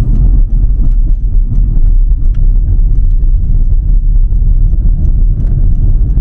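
Road and engine noise inside a moving car's cabin: a loud, uneven low rumble with faint scattered clicks.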